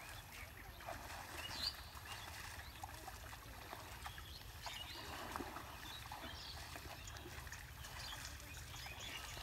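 Faint outdoor ambience: scattered short bird chirps over a low steady rumble, with one slightly louder chirp a little under two seconds in.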